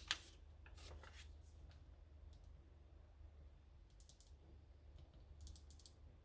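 Faint ticks of a gel pen dotting onto paper, in a few small clusters over a steady low hum.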